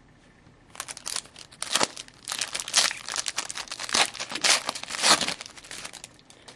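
A trading-card pack's foil wrapper being torn open and crinkled by hand, a dense run of irregular ripping and crackling from about a second in until near the end.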